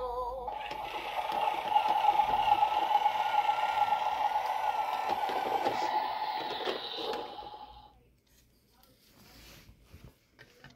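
Electronic sound effect from a battery-operated toy tractor's small speaker, set off by pressing the button on its exhaust stack. It is a steady held tone with wavering sounds over it and cuts off about eight seconds in. Faint clicks of the toy being handled follow.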